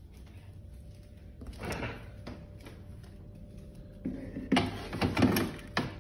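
A fridge-freezer door pulled open, then a plastic ice cube tray scraped and knocked onto the freezer shelf, with several sharp clacks near the end.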